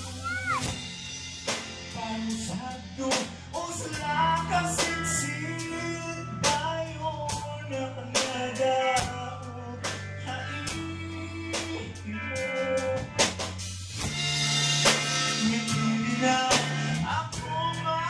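Live rock band playing: a man singing over electric guitars, bass guitar and a drum kit keeping a steady beat.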